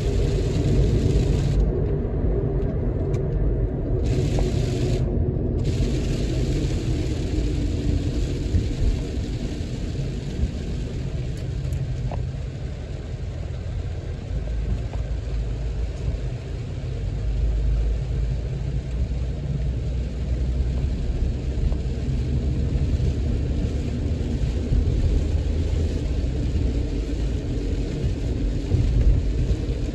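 Steady low road rumble heard inside a moving car on a rain-soaked road, with a hiss of tyres on the wet pavement.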